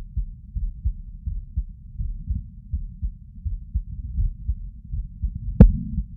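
A human heartbeat, a muffled low lub-dub repeating steadily at about three beats every two seconds. Near the end a single sharp knock stands out, louder than the beats.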